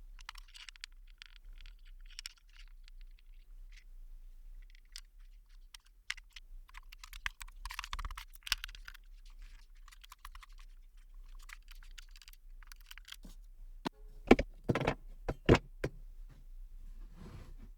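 Scattered small clicks and taps of wooden blocks and tools being handled on a workbench during a glue-up, with several louder wooden knocks about three quarters of the way through.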